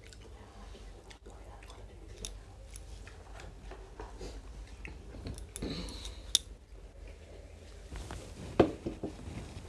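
Eating with the hands at a meal table: soft chewing and rice-mixing sounds with scattered small clicks, and two sharper clicks in the second half.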